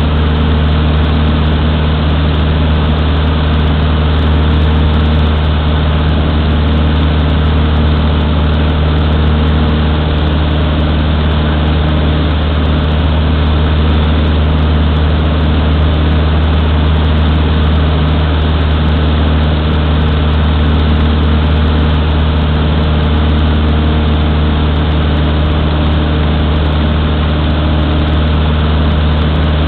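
Cessna 152's four-cylinder Lycoming O-235 engine and propeller running at a steady, unchanging drone, heard inside the small cockpit.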